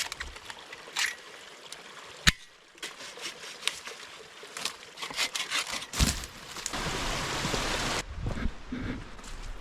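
Firewood being cut: scattered knocks and clicks, a sharp crack a little over two seconds in, and a second of steady rasping hiss near the end that stops suddenly.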